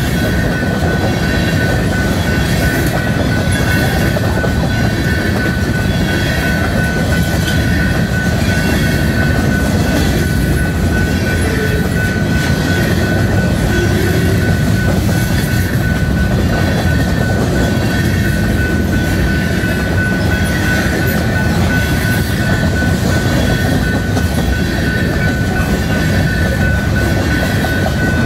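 Freight train of covered hopper cars rolling past: a loud, steady rumble of wheels on rail, with a thin steady high tone over it.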